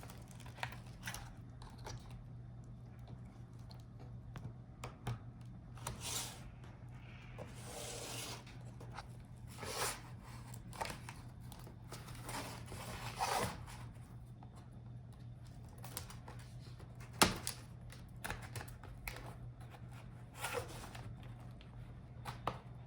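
Scattered plastic clicks, taps and scrapes of a laptop's display assembly being worked loose by hand, with a longer rasping, tearing sound about eight seconds in. A steady low hum runs underneath.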